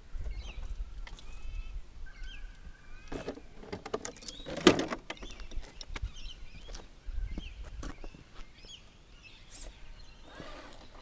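Small birds chirping in short calls throughout, over a low wind rumble on the microphone. Boots scuff and click on rock, with one sharp knock about halfway through.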